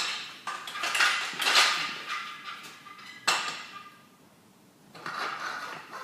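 Metal davit arm being fitted onto its mast: a sharp clank at the start, metal scraping with a faint ring, a second clank a little past three seconds in, and more scraping near the end.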